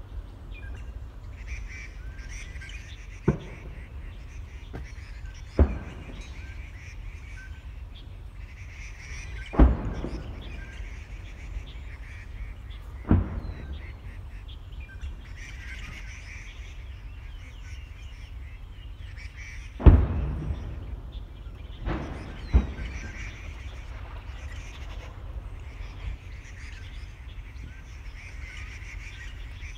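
Birds calling again and again every few seconds, with seven sharp bangs breaking through. The loudest bangs come about ten and twenty seconds in, and a pair comes close together around 22 seconds. A steady low rumble runs underneath.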